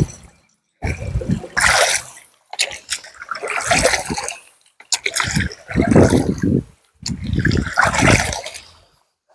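Water splashing and sloshing in several short bursts, each cut off suddenly.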